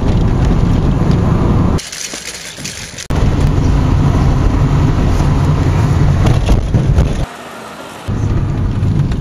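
A car driving, with a low engine and road-noise rumble. The sound cuts abruptly between louder and quieter stretches several times.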